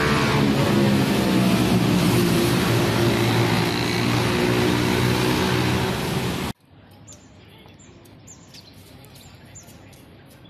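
Loud road traffic on a multi-lane city street, with the hum of passing cars and motorbikes. About two-thirds of the way through it cuts off abruptly to a much quieter scene where small birds chirp again and again in short, high, falling calls.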